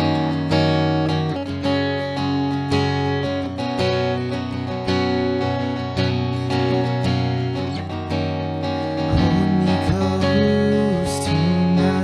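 Acoustic guitar strummed in a steady rhythm, ringing chords played as the instrumental introduction to a song.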